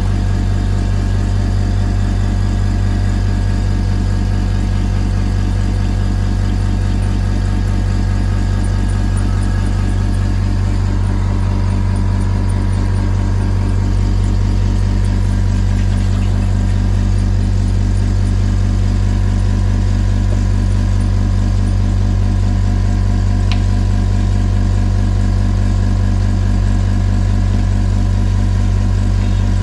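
Steady electric machine hum with a strong low drone, running evenly without change.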